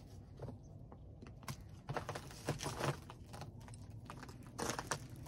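Irregular clicks and crunches of a man moving about and handling a fishing rod on a snowy gravel bank, bunched about two seconds in and again near the end.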